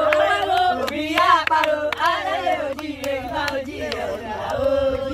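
A group of people singing together, with hand claps scattered through the singing.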